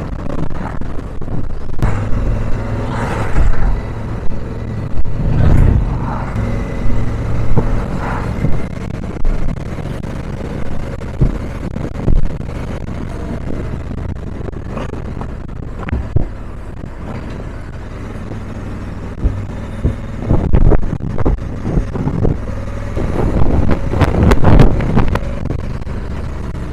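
Motorcycle riding at road speed: a steady engine and road drone, with wind rushing and buffeting over the microphone in irregular gusts, strongest about three, six and twenty-four seconds in.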